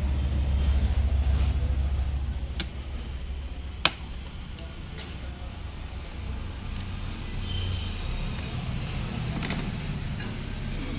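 A steady low rumble, loudest in the first three seconds, with a few faint clicks and one sharp click about four seconds in.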